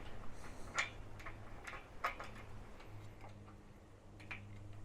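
Faint, irregular small clicks and taps of roof rack bolts and hardware being fitted by hand, a few sharp ticks spread across the few seconds.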